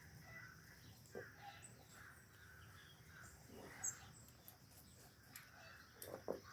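Faint outdoor ambience with scattered distant bird calls and a few soft knocks.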